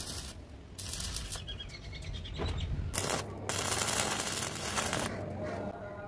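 Electric arc welding on a steel tube frame: the arc's crackling hiss comes in three runs, the longest about a second and a half, with short breaks between them.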